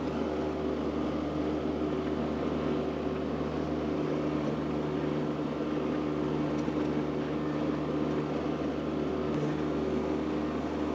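An engine running steadily at a constant speed, a low even drone with no revving or change in pitch.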